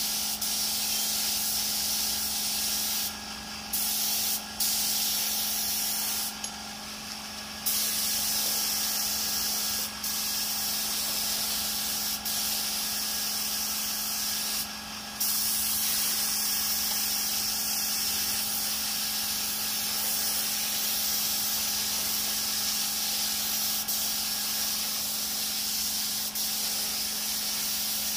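Compressed-air spray gun spraying clear coat: a steady hiss that stops briefly four times as the trigger is let off. A steady low hum runs underneath.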